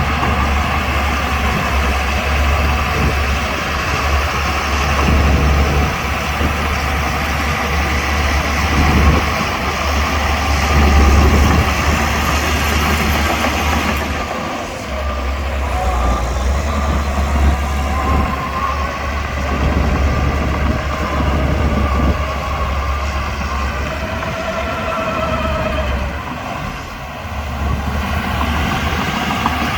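Diesel engine of a Shantui DH17C2 bulldozer running steadily under work, its level swelling and easing at times with short dips in between.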